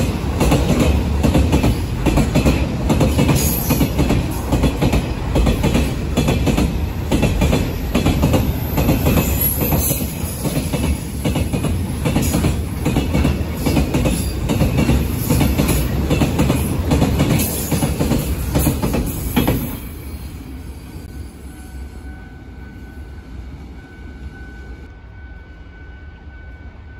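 Railway train passing close by, its cars rumbling and clacking over rail joints; the sound drops away suddenly about twenty seconds in as the train clears.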